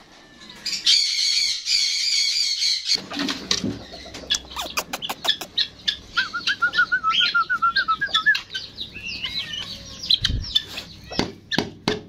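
Caged pet parrots calling: a loud, harsh call lasting about two seconds near the start, then lots of short, high chirps with a quick run of rapid notes midway, and scattered taps and wing flutters among them.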